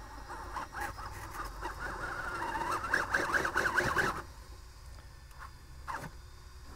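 Electric whine of an RC rock crawler straining against rock: its steering servos fighting under load and its sensored brushless motor pulsing. The wavering whine cuts off abruptly about four seconds in, and a single click follows near six seconds.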